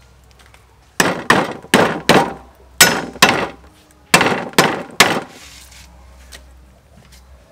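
A cleaver chopping lemongrass stalks on a thick round wooden chopping block: about ten sharp chops in three quick runs, starting about a second in and stopping about five seconds in, each chop with a short ringing tail.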